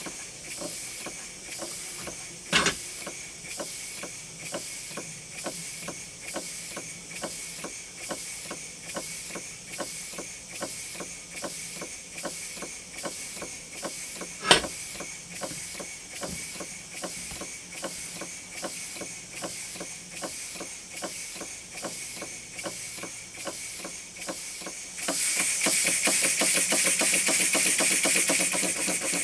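Brass overhead-crank model steam engine running on compressed air: a steady rhythm of exhaust puffs with a hiss. Two sharp clicks stand out, and near the end it gets much louder, with a stronger hiss.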